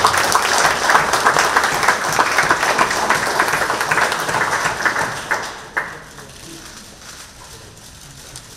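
Audience applauding with a dense patter of clapping, which fades out about six seconds in and leaves only low room noise.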